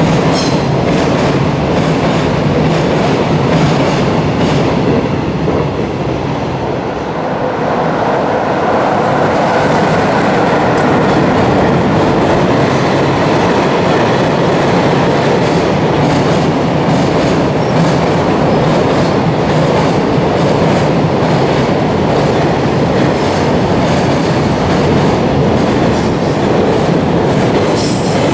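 Long freight train of container and tank wagons rolling past at speed, its wheels clattering steadily over the rail joints.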